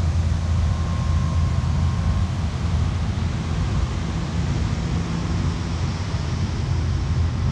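Steady low hum and air rush of the showroom's air conditioning and dehumidifying chillers, which pull the humidity out of the building.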